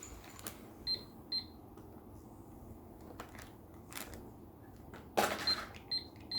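Toy cash register's scanner beeping as items are passed through the checkout: two short high beeps about a second in and three more near the end, with scattered clicks and a brief clatter of handled items.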